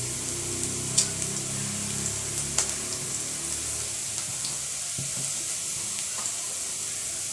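Chopped onions frying in an aluminium pot, a steady sizzle, with two sharp clicks about one second and two and a half seconds in.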